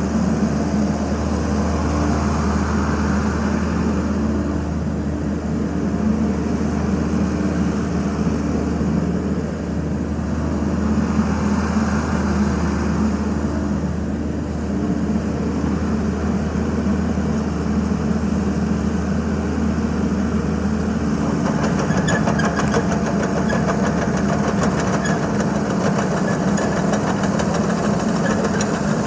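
XCMG XE55DA midi excavator's diesel engine running steadily, its note swelling a couple of times as the hydraulics work. About three quarters of the way through the sound changes and a fast, fine rattle joins in as the machine travels on its tracks.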